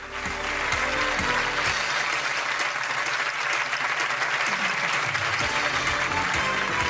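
Studio audience applauding steadily over closing theme music, the applause coming up right at the start.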